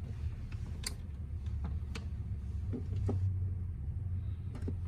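Several light clicks about a second apart, from multimeter probes and the meter being handled against a UPS outlet, over a low steady hum.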